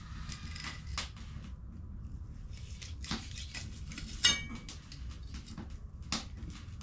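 Knife filleting a tailor on a wooden board: scattered taps and scrapes of the blade, with one sharp metallic clink a little past halfway, over a low steady rumble.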